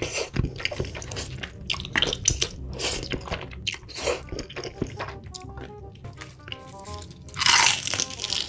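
Close-miked chewing of creamy rosé tteokbokki and glass noodles, with a loud bite into glazed fried chicken near the end, over quiet background music.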